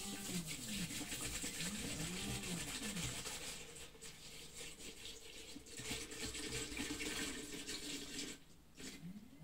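Isopropyl alcohol poured from a large plastic bottle in a steady stream, splashing into an empty tall plastic wash tank, the flow easing briefly about four seconds in and again near the end. Two short rising-and-falling tonal sounds come near the start and about two seconds in.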